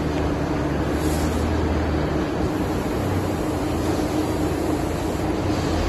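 Veneer glue spreader running: a steady machine drone of its motor and glue rollers, with a constant low hum and a steady mid-pitched tone under an even mechanical noise.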